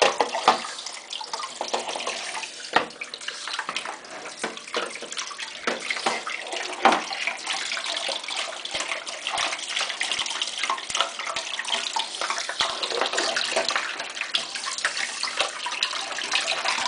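Hot water running from a tap onto a plastic washing-machine detergent drawer in a sink as it is rubbed clean by hand, with scattered knocks and clatter of the plastic against the sink.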